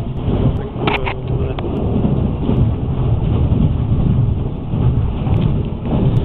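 Steady low rumble of a moving passenger train heard from inside the carriage, with a few sharp clicks about a second in.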